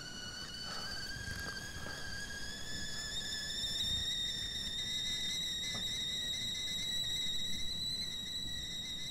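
A sustained high-pitched tone from the film's soundtrack, held steady with overtones and slowly rising in pitch, building tension.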